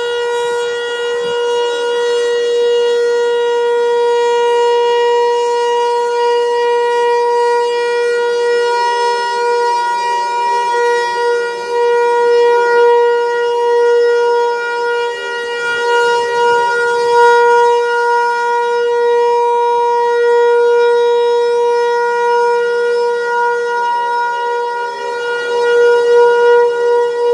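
Outdoor tornado warning siren sounding during a test, holding one steady pitch, its loudness swelling and easing slightly.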